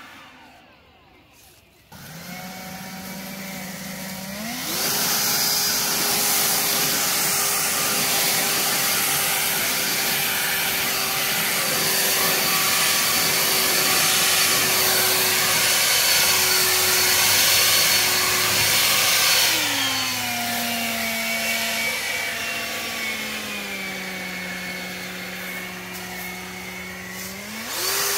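EGO 650 CFM cordless leaf blower running, its brushless fan motor driven by a retrofitted cheap BLDC controller: a steady whine over the rush of air. It starts about two seconds in at low speed, speeds up to a higher steady whine a couple of seconds later, drops back to a lower speed about two-thirds of the way through, and speeds up again at the very end.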